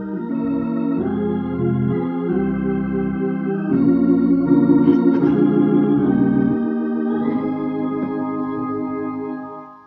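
Organ playing slow, sustained chords that change every second or so, fading out near the end.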